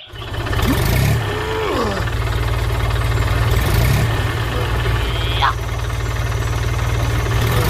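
Miniature tractor's small engine running steadily with an even low chugging.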